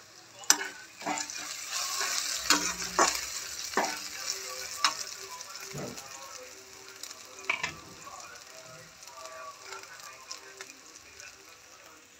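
Sliced aromatics frying in hot oil in a steel kadhai, sizzling while a steel spatula stirs them and scrapes and knocks against the pan several times. The sizzle is strongest in the first half and dies down after.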